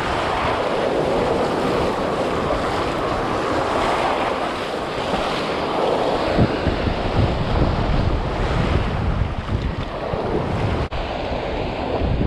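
Surf breaking and washing up the beach, with wind buffeting the microphone, the buffeting heavier in the second half.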